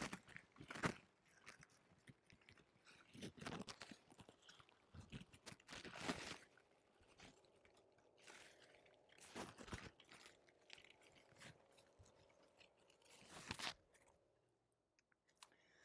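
Faint, scattered crunchy rustles of hands handling a zucchini plant and wrapping stiff plastic-sheathed electrical wire around an anchor screw on a wooden trellis post, with near silence between them.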